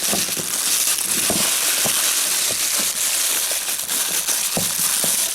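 Plastic packaging bag crinkling and rustling steadily as a piston is unwrapped from it by hand.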